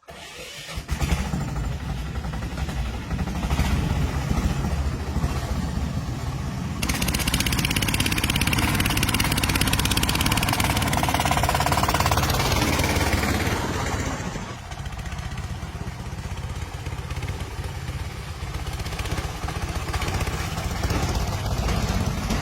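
A motor vehicle engine running continuously. It works harder and louder from about seven seconds in until about fourteen, then settles back to a lower, steady running sound.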